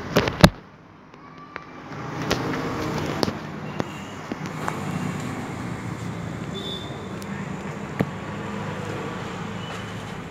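Steady background road-traffic noise, with a few sharp knocks: a loud pair right at the start, then smaller clicks scattered through.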